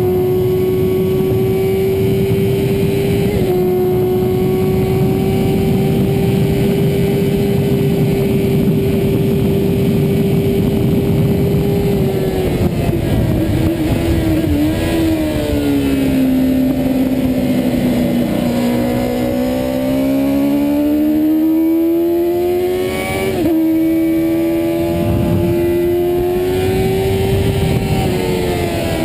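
Yamaha FZR400RR's 400 cc inline-four racing engine at high revs, heard onboard with rushing wind. It holds a steady high pitch with a quick upshift about three seconds in, sinks over several seconds, climbs again through another upshift, and drops near the end.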